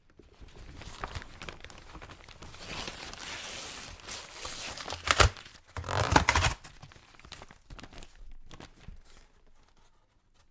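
Packing tape being torn off a cardboard box and the box and packaging rustling, with a couple of sharp knocks about halfway through.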